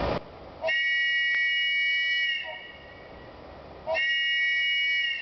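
Wooden train whistle blown in two blasts of about a second and a half each, each a steady chord of several high tones, with its finger holes covered to change the sound.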